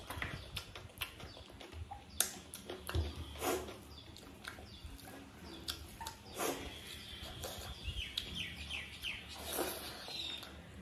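Close-miked eating sounds: wet chewing, lip smacks and the squish of rice and gravy being mixed and scooped by hand, many short sharp clicks in an uneven run. A few short high chirps come in near the end.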